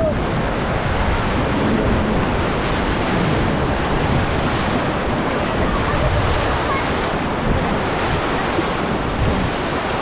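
Whitewater river rapids rushing around an inflatable raft: a steady, dense wash of churning water.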